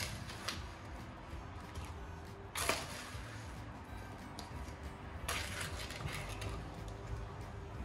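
A metal spoon scooping sugared apple pie filling from a mixing bowl and dropping it into a pie crust: a few sharp clinks of the spoon against the bowl, the loudest about two and a half seconds in, and a short scrape a little past halfway.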